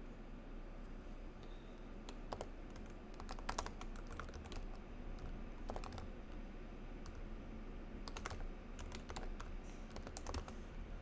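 Computer keyboard typing in several short bursts of keystrokes, with pauses between them.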